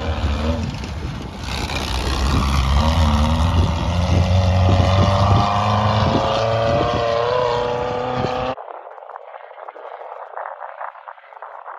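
Off-road race buggy's engine running hard as it passes close and pulls away, its pitch climbing as it accelerates. About eight and a half seconds in, the sound cuts off abruptly and a faint rough noise follows.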